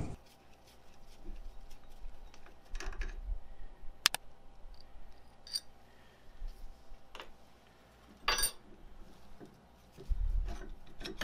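Scattered light metallic clicks and clinks as the Y-axis ball screw's end bearing block is worked off the mill table by hand. A sharp click comes about four seconds in, a brief rattle just past eight seconds, and a low thump near the end.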